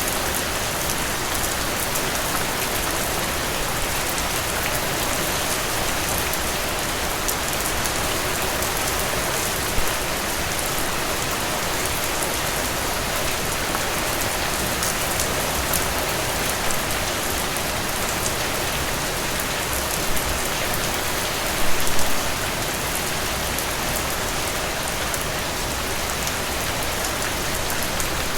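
Steady rain falling, a dense even hiss of drops on a surface, with a few louder drops standing out, a brief cluster of them about twenty-two seconds in.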